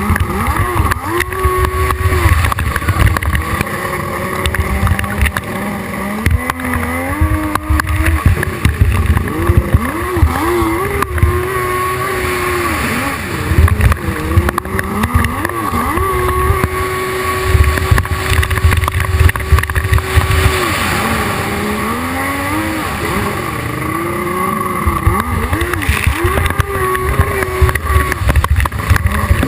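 Hydrospace 1100 racing jet ski engine at high revs. Its note rises and falls again and again as the throttle is worked, holding steady for a few seconds at a time between the dips.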